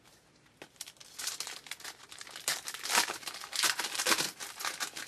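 Plastic wrapper of a 2012 Bowman baseball card pack crinkling as it is torn open and handled, a dense run of crackles from about a second in.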